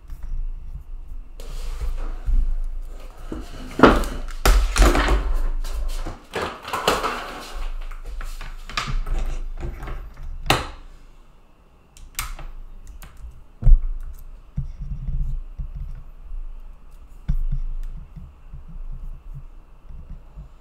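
Rustling and handling noises with a low rumble, broken by a few sharp knocks and thunks in the second half.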